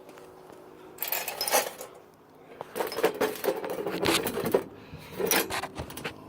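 Clinking and rattling handling noises in three bursts, with the longest in the middle.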